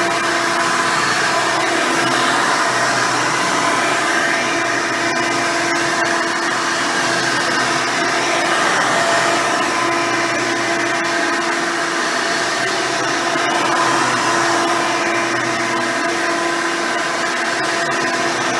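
Hoover Elite 350 upright vacuum running steadily with a modern 7-amp motor and its original 7-blade fan. It holds a steady whine with a constant pitch.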